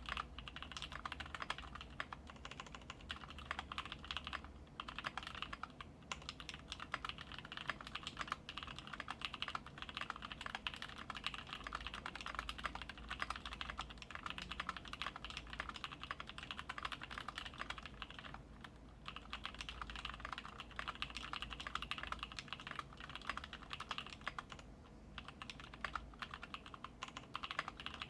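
Continuous fast typing on a custom KBD75v2 mechanical keyboard fitted with lubed NovelKeys Cream linear switches on an aluminium plate, with PBT keycaps and no sound dampening. Dense key clicks with brief pauses, a few seconds in, about two thirds through and near the end.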